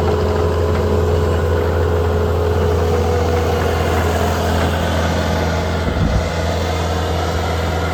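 Bobcat T770 tracked skid steer's diesel engine running steadily, with a brief low thump about six seconds in.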